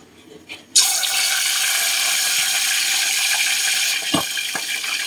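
Chicken pieces sizzling in hot frying oil, starting suddenly about a second in as the first piece goes in and then running steadily. Two light knocks come near the end.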